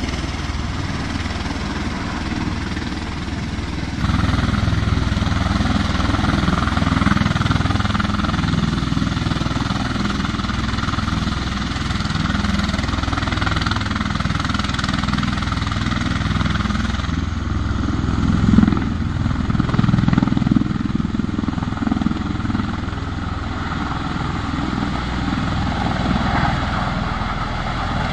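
V-22 Osprey tiltrotor's rotors and engines, a steady heavy drone with a beating rotor pulse. It gets louder about four seconds in and swells briefly a little past the middle.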